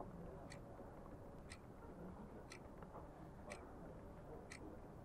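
Wall clock ticking faintly, once a second, over quiet room tone.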